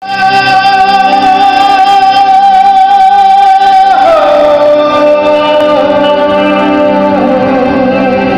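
Live band with keyboard and electric guitars playing through a PA system, a singer over it. A long held note drops in pitch about four seconds in, and the melody wavers and steps down from there.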